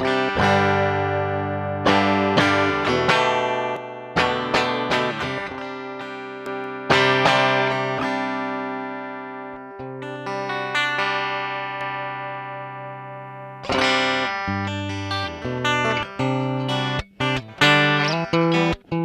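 Guitar tone check: chords strummed and left to ring out, then toward the end quick rhythmic strums choked off sharply between strokes.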